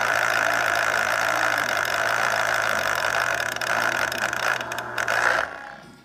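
Electric citrus juicer's motor running steadily as a half orange is pressed onto its spinning reamer, then stopping suddenly about five and a half seconds in.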